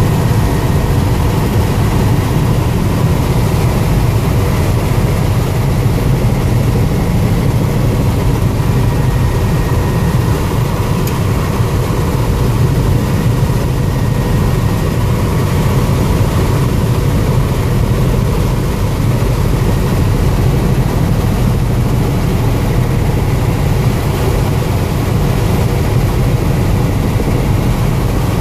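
Helicopter in flight, heard from inside the cabin: a loud, steady drone of rotor and engine with a deep rumble and a faint steady whine above it.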